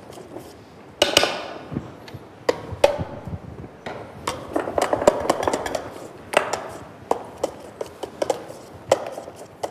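A utensil knocking and scraping against a stainless steel mixing bowl as Italian meringue is worked again by hand: a string of irregular sharp clicks and knocks.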